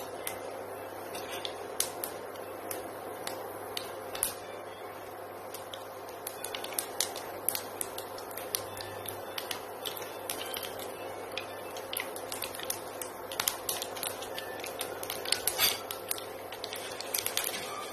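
Black mustard seeds crackling and popping in hot oil in a nonstick frying pan, with sharp irregular pops that grow much more frequent about six seconds in. This is the seeds bursting as the oil reaches tempering heat. A steady hum runs underneath.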